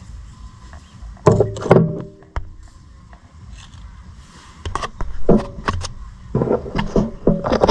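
Scattered sharp knocks and clanks, a couple of them ringing briefly. There are two loud ones about a second in, then a quieter stretch, then a run of knocks that grows busier over the last few seconds.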